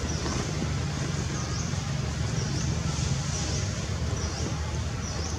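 Steady outdoor background noise: a low rumble, with a faint high chirp repeating every half second to a second.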